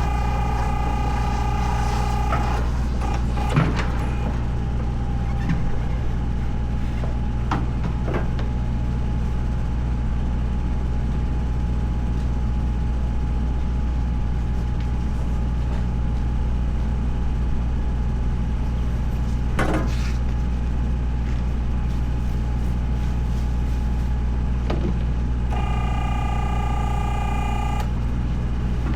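A large vehicle's engine idling with a steady low hum, and a few short knocks. A steady electronic tone sounds for a couple of seconds at the start and again near the end.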